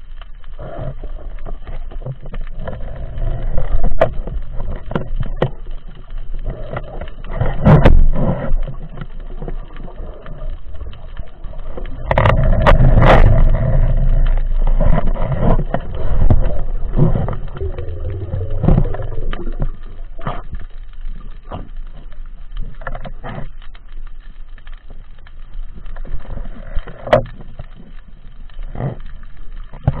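Muffled underwater noise picked up by a camera in a waterproof housing while the diver swims: a low rush of moving water that swells in a few surges, with scattered short clicks and knocks.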